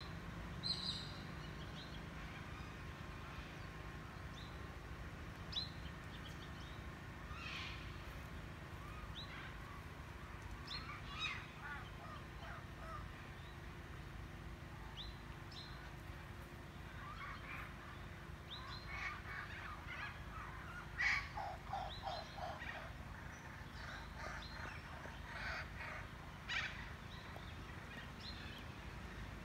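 Wild birds calling intermittently, with short calls and chirps scattered throughout and busiest in the second half, over a steady low rumble.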